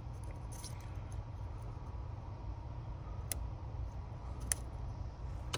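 Two faint, sharp clicks of a Lishi lock pick working the wafers inside a Ford lock, over a steady low rumble.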